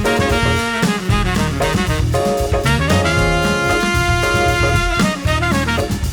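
Background music: upbeat swing-style jazz with horns and a drum kit, with a sustained horn chord about halfway through.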